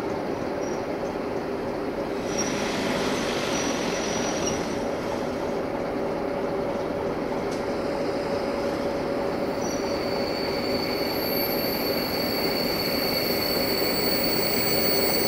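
Electric locomotive hauling a freight train rolling slowly in: a steady rumble and hum that grows gradually louder as it approaches. A thin, high, steady squeal sets in about ten seconds in.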